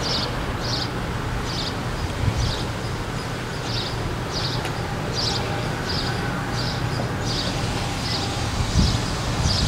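Diesel locomotive rumbling low and steady as the train approaches slowly. Over it, a short high chirp repeats about twice a second.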